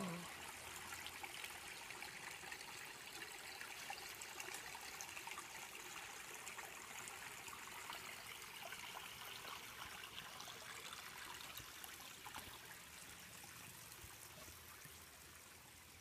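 Faint, steady trickle of shallow water running over stones in a man-made garden creek, growing slightly fainter toward the end.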